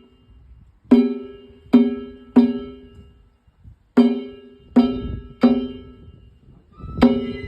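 Danjiri festival gongs (kane) struck in groups of three, each stroke ringing and fading before the next, with faint low drum thuds under some strokes.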